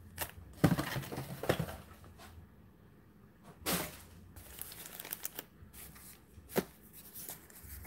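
1989 NBA Hoops wax card packs being handled and torn open: a string of short crinkles, rips and paper rustles, heaviest in the first second and a half, with a few sharper snaps later.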